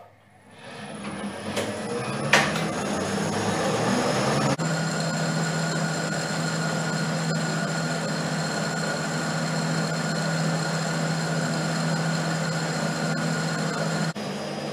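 Homemade lathe starting up and running up to speed, then running steadily while a boring bar cuts the bore of a cast iron pulley: a steady hum with a high, even whine over it. A sharp click about two seconds in.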